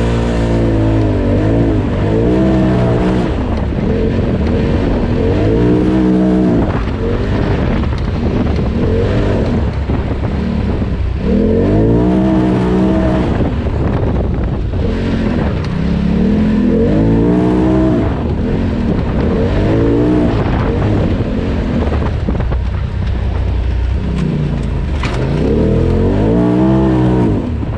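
Polaris RZR Turbo side-by-side engine under hard throttle on a trail. Its pitch climbs and falls away about six times as the driver gets on and off the gas.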